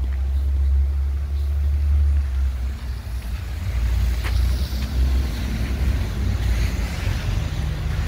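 City street ambience outdoors: a steady low rumble, with one short click about four seconds in.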